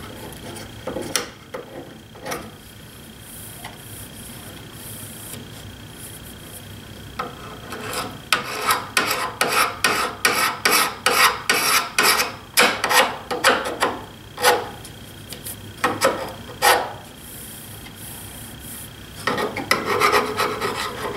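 Repeated scraping strokes of a hand tool working dried glue residue off the steel bar of a Bessey K-body clamp. There are a few scattered strokes at first, then a quick run of about two strokes a second through the middle, and another run near the end.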